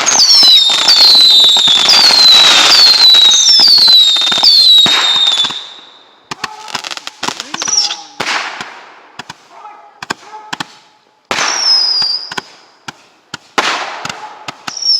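Consumer fireworks going off. For about the first five seconds there is a loud, dense crackling barrage with a string of whistles, each falling in pitch. After that come scattered sharp bangs and pops, with a few more falling whistles.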